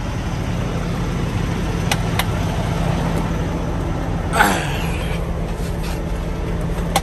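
Kenworth T680 semi truck's diesel engine idling steadily. A few light clicks, and about four and a half seconds in a short falling squeak.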